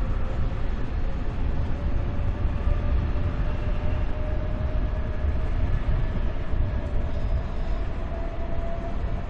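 SNCB double-deck passenger train (M6 coaches) moving along the platform: a steady low rumble of the wheels and running gear, with a faint whine that rises slowly in pitch.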